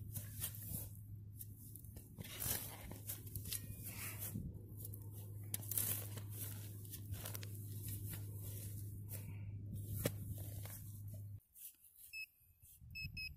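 A long-handled digging tool chopping into grassy turf, with repeated strikes and the scrape and tear of soil and roots over a steady low hum. Near the end a metal-detecting pinpointer beeps, once and then three times quickly, as it is probed into the hole.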